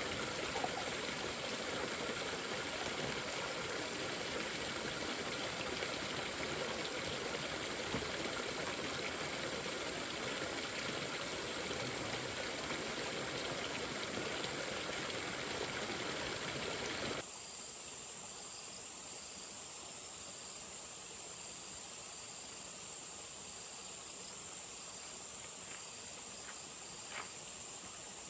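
Mountain stream water running, cut off abruptly about seventeen seconds in, leaving insects chirping: a steady high trill with a fainter chirp repeating about once a second.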